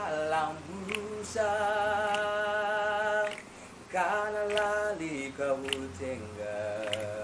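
Mixed youth choir of male and female voices singing a Chichewa hymn a cappella, a soft passage of long held notes, with shorter notes stepping downward near the end.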